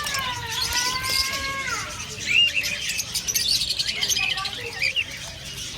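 Many caged parrots chirping and squawking together: one long held call at the start, then a dense chatter of quick, short chirps.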